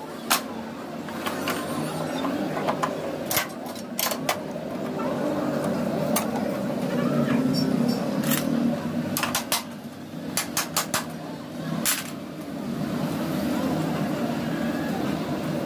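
Scattered sharp metal clicks and knocks as a motorcycle's seat-frame bracket and its bushings are handled and fitted onto the frame, over a low murmur of background voices.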